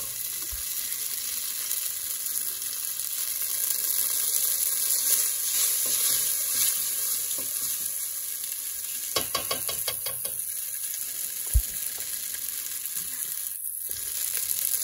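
Cooked spaghetti sizzling in hot oil in a stainless-steel skillet as it is added and turned with a plastic pasta server: a steady high hiss, with a few clicks of the server against the pan about nine to ten seconds in.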